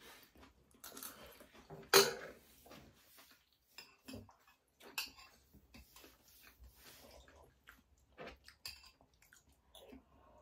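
Eating at a table: metal spoons clicking against ceramic bowls and a plate, with chewing in between. The sharpest clink comes about two seconds in.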